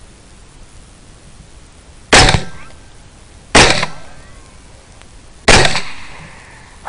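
AR-15 rifle fired three times, about a second and a half and then two seconds apart; each shot is sharp and loud, with an echo dying away behind it.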